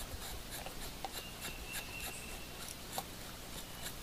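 Thin multi-tool knife blade shaving curls off a stick of resinous fatwood, a quick run of short scraping strokes.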